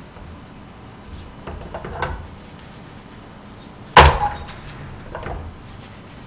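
A metal spatula scraping and tapping in a frying pan, then one sharp metallic clunk about four seconds in as the pan is lifted off a portable gas stove, followed by a lighter knock.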